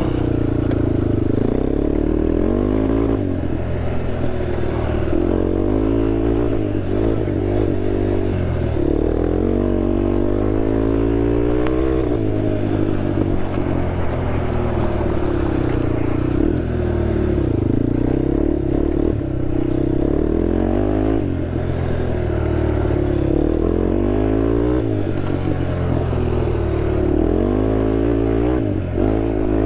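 Honda TRX sport quad's engine running while riding off road, its pitch climbing and dropping again and again every few seconds as the throttle is opened and closed.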